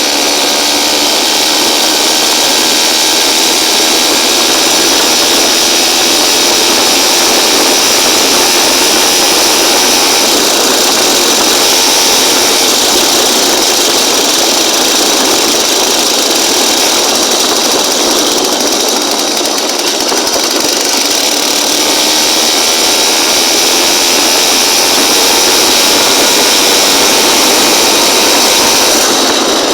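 Motorized bicycle's small engine running loud and steady, its pitch drifting slowly up and down.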